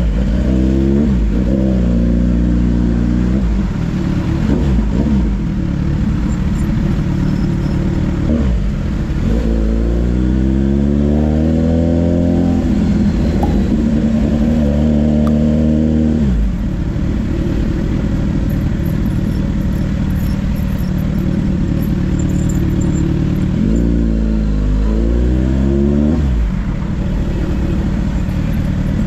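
Kawasaki Ninja 1000SX's inline-four engine heard from on board, pulling hard three times. Each time the revs climb steadily, then cut back suddenly, and the engine runs at a steady drone in between.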